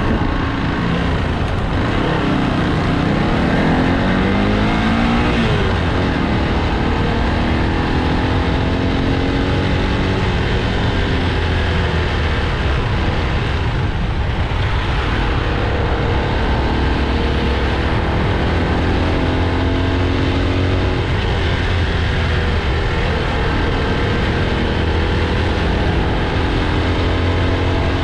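Motorcycle engine running under way, its pitch climbing and dropping as it speeds up and slows, most clearly in the first few seconds. It sits over a steady low rumble and a rush of air and traffic noise.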